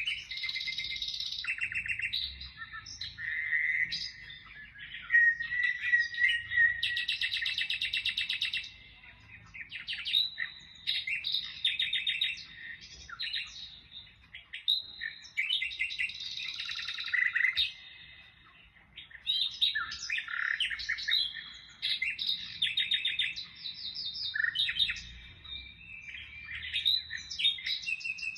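Birds chirping and singing almost without a break: rapid trills, repeated chirps and short whistles from several birds overlapping, with a couple of brief lulls.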